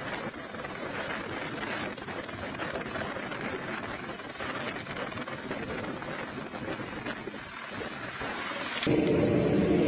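Light helicopter hovering, its rotor and turbine making a steady rushing noise. Near the end it cuts abruptly to a louder, deeper drone.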